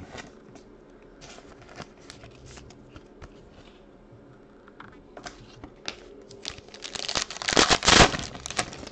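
Light rustles and taps of trading cards being handled, then a Totally Certified card pack's foil wrapper crinkling loudly as it is torn open, loudest near the end.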